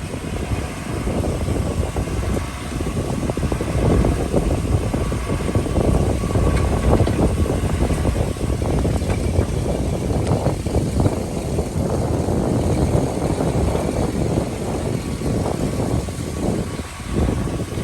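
Diesel engine of a heavy construction machine running steadily under load, a loud, rough low rumble.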